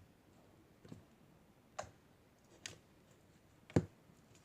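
Slime being kneaded with cut rubber band pieces mixed in, giving four sharp clicks or pops about a second apart, the last one the loudest.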